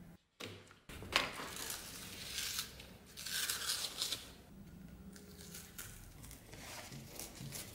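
Scissors cutting and trimming the glued-on black covering of a long sword part, with a run of short snips and rustling scrapes as the piece is handled.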